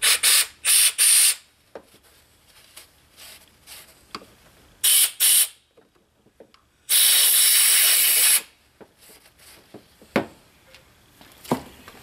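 Compressed-air blow gun hissing in short blasts, blowing drill chips out of a freshly drilled bolt hole: three quick bursts, two more about five seconds in, then one longer blast about seven seconds in. A few light clicks of handling come in between.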